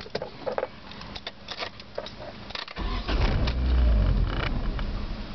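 Scattered clicks and knocks, then about three seconds in the 1994 Mazda Protegé's 1.8-litre BP four-cylinder engine is cranked and starts. It is loudest just after it catches and then keeps running. This is a car with a hard-starting problem.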